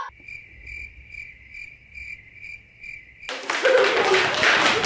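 Cricket chirping, regular chirps a little over two a second against otherwise dead quiet: the stock 'awkward silence' gag. About three seconds in, a loud noisy sound cuts in suddenly.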